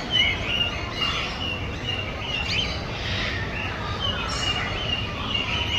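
Birds chirping: many short, high chirps and whistles keep coming, over a steady low background rumble.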